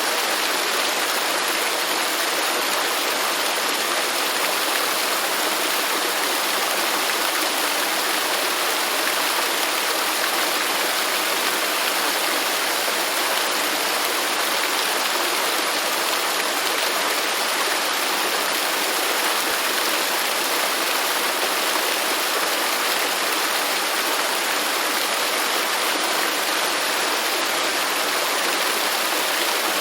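Waterfall: falling water splashing in a steady, unchanging hiss.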